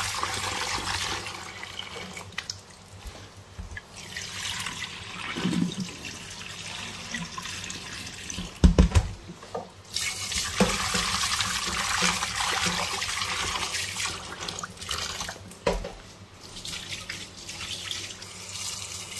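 Kitchen tap running into a stainless steel pot in a steel sink while a hand swishes and rinses shiitake mushrooms in the water. A few dull knocks come about halfway through.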